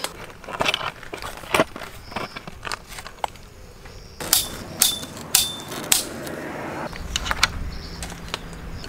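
Metal hooks and rack parts clinking and knocking as a camping hanger rack is put together. A few sharp metallic clinks with a short ring come about four to six seconds in.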